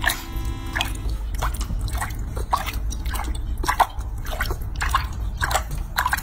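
Irregular small wet clicks, drips and splashes of bath water in a sink, mixed with a baby macaque's chewing as it eats a piece of fruit.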